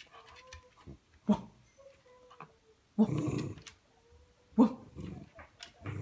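A dachshund sneezes in sharp, snorting bursts, three times, with a thin, high whine between them. It is being asked to bark and sneezes again and again instead.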